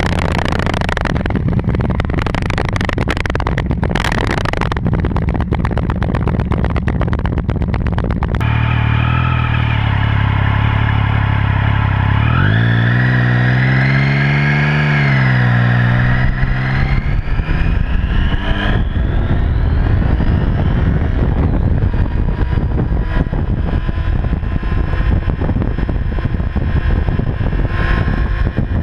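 Motorcycle engine running loud through its exhaust. About eight seconds in it settles to a steady idle, is revved up and brought back down, and then runs loud again with another rev rising in pitch.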